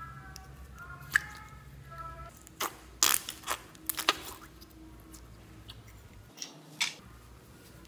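Sharp clicks and taps of a small plastic miniature-Pepsi-bottle slime container being handled and opened, a cluster of them about three to four seconds in and a couple more near the end, with a soft squish as the slime comes out.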